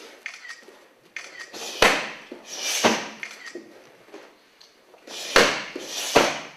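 Kicks and knee strikes landing on a handheld foam kick shield: four sharp smacks, two about two and three seconds in and two more near the end, with lighter taps and shuffles of bare feet between them.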